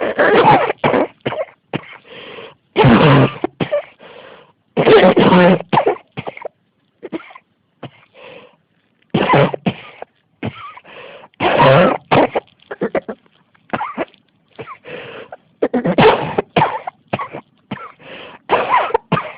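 A woman coughing in repeated fits: a hard cough every two to three seconds, each followed by a quick run of shorter coughs.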